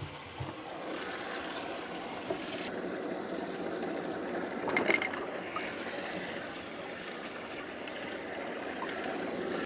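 Steady rushing water noise around a bass boat, with a short sharp clatter about five seconds in.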